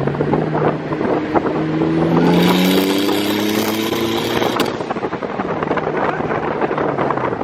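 Big-turbo Ford Focus ST's turbocharged four-cylinder, heard from inside the cabin, accelerating hard under boost: the engine note rises for about three seconds with a rushing hiss over it, then cuts off suddenly as the throttle is lifted, leaving a lower steady engine drone.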